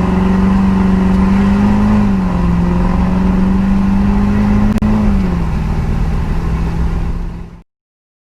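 2004 Duramax LB7 V8 turbodiesel running through a 4-inch straight-pipe exhaust: a steady drone whose pitch rises slightly and drops back a couple of times. The sound cuts off suddenly near the end.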